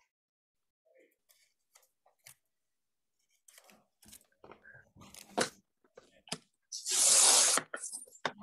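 Paper on a 12-inch paper trimmer: a few soft taps and rustles as the sheet is handled, then a rasping swish of paper lasting just under a second, about seven seconds in.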